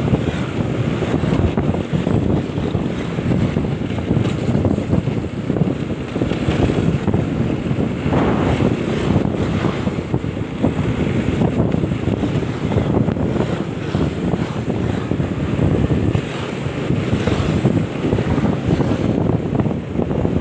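Loud wind rushing and buffeting over the microphone of a moving motorbike, a steady, fluttering roar throughout.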